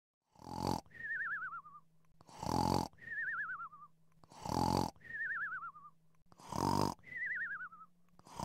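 Cartoon snoring sound effect, repeated four times about every two seconds: a snore followed by a wobbling whistle that falls in pitch.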